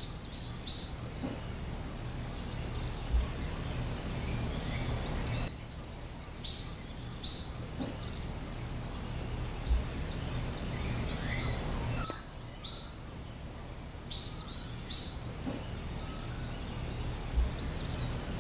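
Birds calling with repeated short, arched, high chirps over a steady background rush that dips twice, with three soft low thumps spread through.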